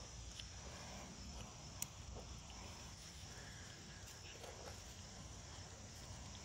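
Quiet outdoor background with a steady high insect hum, like crickets. Over it come a few faint taps of a fillet knife cutting catfish on a plastic cutting board, and one sharp click about two seconds in.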